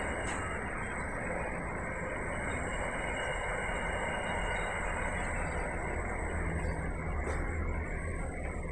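Intermodal container freight train passing close by at speed: a steady rumble and clatter of wagon wheels on the rails, with a sharp click just after the start and another about seven seconds in.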